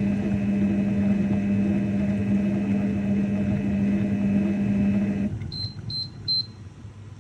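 MasterPro multicooker kitchen robot running with a steady hum while cooking, stopping about five seconds in as its timer reaches zero, then three short high beeps signalling the end of the cooking program.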